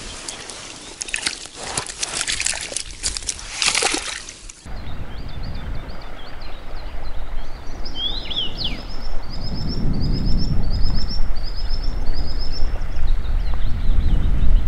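Water splashing and sloshing as a caught fish is put into a keepnet at the water's edge. Then a small songbird sings short repeated phrases over a low rumble that grows louder toward the end.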